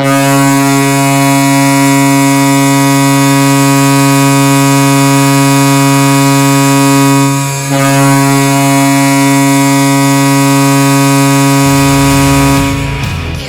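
Hockey goal horn sounding a steady multi-tone chord, heard dry with no arena reverb: one long blast, a brief break about seven seconds in, then a second long blast that fades out near the end.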